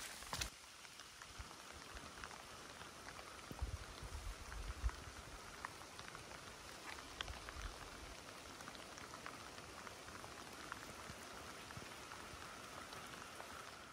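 Light rain falling: a soft, even hiss with many scattered drip ticks and a few low thumps partway through.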